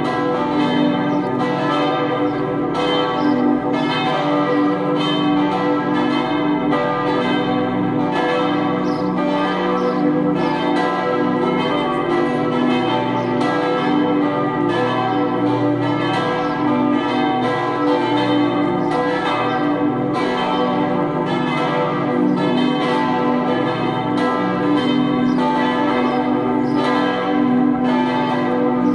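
Four swinging church bells, tuned G, E, D and B, ringing together in full peal, their strokes overlapping without a break. The deep ringing of the two largest bells (D and B) carries under the quicker strokes of the two smaller ones.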